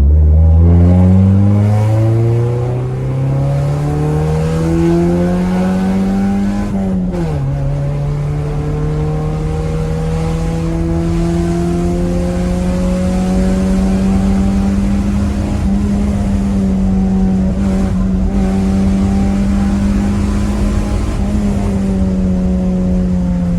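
Honda Civic EJ6's four-cylinder engine accelerating hard, its pitch climbing steadily for about seven seconds before dropping sharply at an upshift. It then pulls on at a fairly steady, slowly rising note, easing off briefly near the end.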